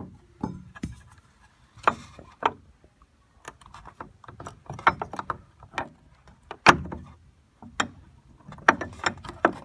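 Parts of an Everbilt ornamental metal gate latch clicking and clanking as they are handled and slid into position, an irregular run of small clicks with a sharper knock about seven seconds in.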